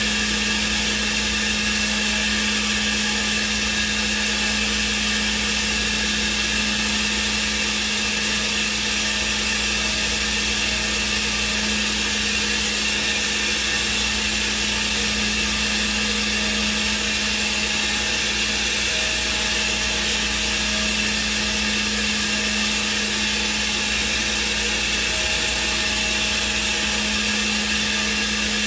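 Thermwood five-axis CNC router running steadily as its spindle machines a block: a constant hum with a high hiss over it.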